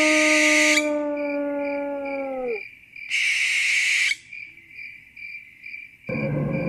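A long canine howl slowly falls in pitch and dies away about two and a half seconds in, over steady pulsing cricket chirps that run on throughout. Two hissing whooshes of about a second each come at the start and about three seconds in, and a sudden loud low noise breaks in near the end.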